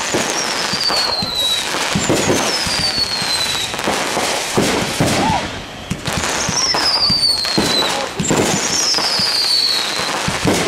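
Fireworks going off overhead: dense crackling and popping as gold crackling stars burst, with four long high whistles that fall in pitch.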